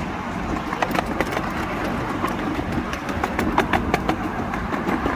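A 7¼-inch gauge miniature passenger train rolling along, its wheels rumbling steadily on the track, with irregular sharp clicks and clacks as the wheels run over rail joints and points.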